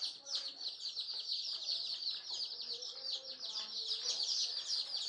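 A brood of desi chicken chicks peeping without pause, many short, high, downward-sliding calls overlapping.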